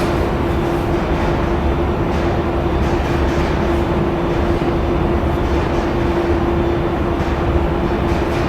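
A workshop machine running steadily, a continuous rushing noise with a constant mid-pitched hum underneath.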